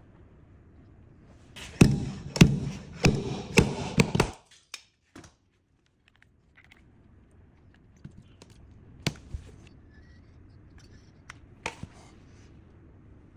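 A rapid run of sharp knocks and taps lasting about two and a half seconds, then a few single sharp taps later on: dent repair tools working on a car's metal quarter panel during glue pull repair.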